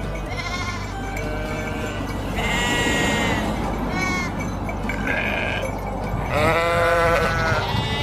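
Several sheep bleating, about half a dozen calls at different pitches following one another and sometimes overlapping. The longest and loudest bleat comes about six and a half seconds in.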